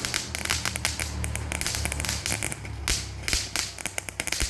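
Firework crackling: a dense, irregular run of sharp pops and snaps, over steady background music.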